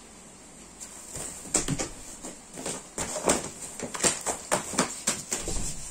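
A kitten scampering and pouncing: a rapid, irregular patter of paw taps, claw scrabbles and light thumps on a tiled floor and foam play mat. It starts about a second in and keeps going.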